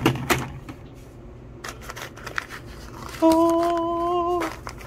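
Paper wrapping crinkling and rustling as it is peeled back off a revolver in its plastic case, after a couple of sharp clicks at the start. About three seconds in, a man's voice holds a single hummed note for about a second and a half as the gun is uncovered, the loudest sound here.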